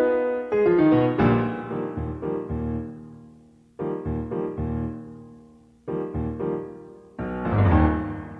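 Background piano music: a run of notes at the start, then single chords that ring out and fade before the next one is struck.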